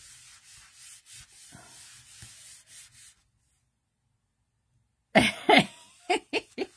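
A hand rubbing and sliding over cardstock, faint, for about three seconds. Near the end, a sudden loud burst of a woman's laughter in short breathy pulses.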